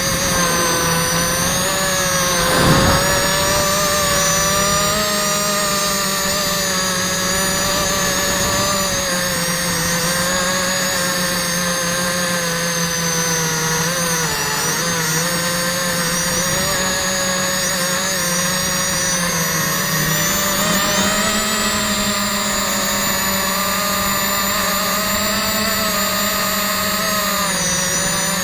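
Quadcopter's electric motors and propellers whining steadily in flight, the pitch drifting up and down as the throttle changes, with a brief louder rush about three seconds in.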